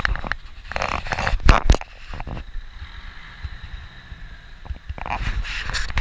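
Handling noise from a gloved hand on the camera: rubbing and scraping on the microphone, with two sharp knocks about a second and a half in, over a low wind rumble.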